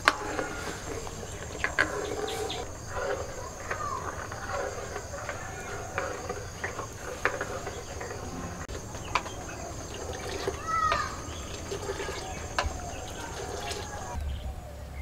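Steel ladle stirring milk in a steel kadai, clinking against the pan now and then, over a steady high drone of crickets; birds call now and then, one gliding call about eleven seconds in.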